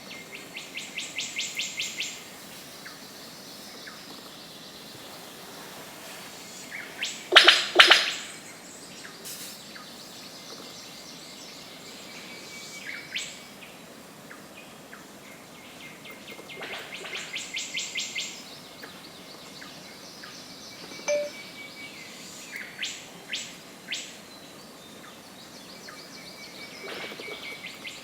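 Rainforest bird calls: trains of rapid, evenly spaced high ticks that grow louder over about two seconds, heard three times. About seven seconds in there is one loud double call, the loudest sound, and a few short sharp notes are scattered between.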